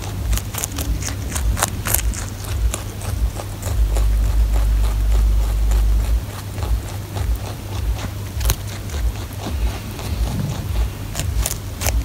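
A rabbit crunching raw cauliflower: quick, crisp bites and chewing clicks, thicker at the start and near the end and sparser in the middle. A low rumble runs underneath and is loudest from about four to six seconds in.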